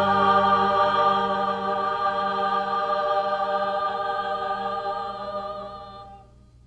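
The drama's title theme music ending on one long held chord that fades out about six seconds in.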